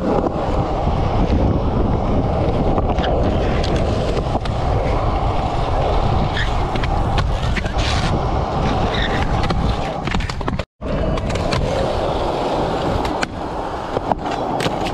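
Skateboard wheels rolling over rough concrete: a steady rumble with scattered small clicks. The sound cuts out for a moment about two-thirds of the way in.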